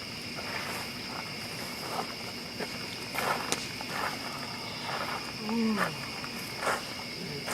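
Crickets chirring steadily, with a few soft brief knocks or rustles and a short low voice-like sound near the end.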